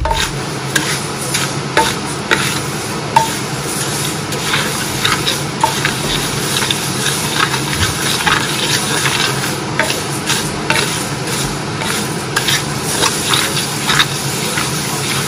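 Food sizzling in a pan or pot while being stirred, with frequent light clicks of the utensil against it.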